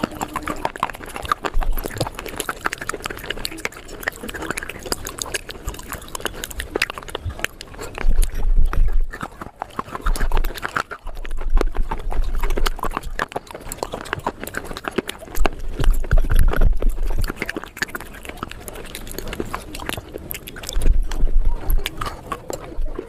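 Crunchy chewing sped up to four times normal speed: a dense run of crackling bites, with low thumps coming and going every few seconds.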